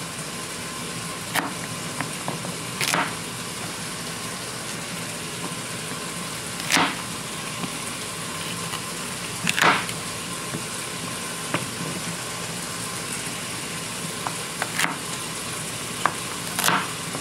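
Chicken pieces sizzling steadily in a frying pan, with a knife cutting through celery stalks onto a cutting board every few seconds. Each cut is a short sharp sound, louder than the sizzle.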